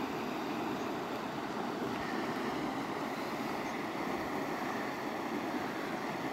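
A shallow, fast-flowing mountain river rushing steadily over stones.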